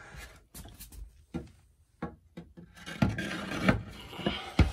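Thin wooden accent-wall boards being handled and set down, sliding and rubbing against each other with scattered light knocks and a sharper wooden knock near the end.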